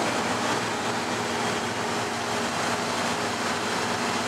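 Steady road and wind noise inside the cabin of a moving 1954 Chevrolet 210 station wagon at highway speed, with a faint low engine hum underneath.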